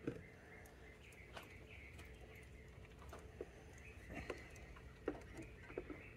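Quiet, scattered small metal clicks and taps as a brass battery terminal clamp is handled and fitted onto a battery post, with faint bird chirping behind.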